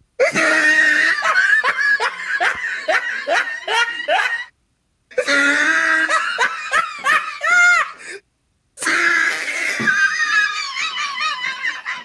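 A person laughing hard in three long bouts, each a fast string of "ha-ha-ha" pulses, with two short silent gaps between them.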